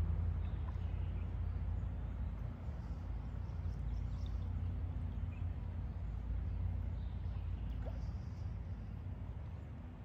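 Outdoor ambience on a wooded creek: a steady low rumble, with faint bird calls now and then.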